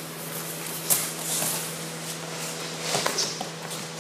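Bare feet shuffling and thumping on wrestling mats as people grapple, with a sharp thud about a second in and another near the three-second mark, over a steady hum.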